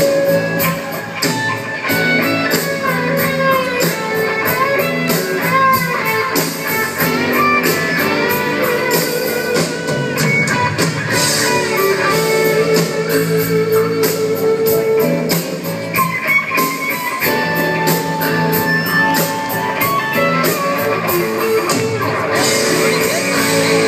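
A live rock band playing an instrumental passage: an electric guitar lead with bent, wavering notes over a steady drum beat.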